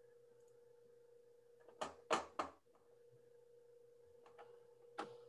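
A faint, steady electronic tone with a low hum under it, broken about two seconds in by three sharp clicks in quick succession, with a few softer clicks later and one more near the end.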